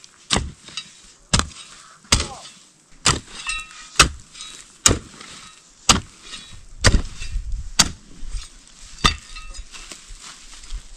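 A hoe chopping into soil: about ten strokes, roughly a second apart, stopping near the end.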